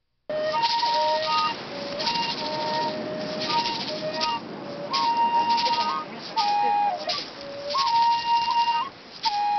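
Music: a flute playing a slow melody of long held notes with short glides between them, over a rattle shaken at fairly regular intervals.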